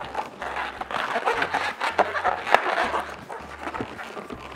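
Latex modelling balloons, a Qualatex 350 among them, squeaking and rubbing in the hands as the balloon is tied end to end and twisted, in short irregular squeaks and scrapes.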